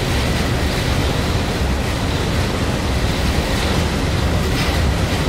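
Steady rushing wind and water noise with a heavy low rumble, aboard a boat crossing the harbor in a storm. No thunderclap or other sudden sound stands out.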